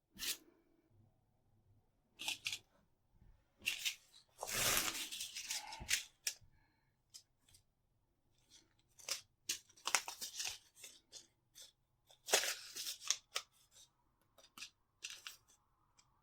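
Plant vines being torn and pulled: bursts of rustling and tearing, two of them longer, with short sharp clicks in between.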